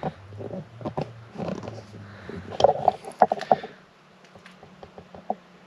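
Irregular scuffing, scraping and light knocks of a person shifting about on the dirt floor of a crawlspace, loudest about three seconds in. A low steady hum stops about three seconds in.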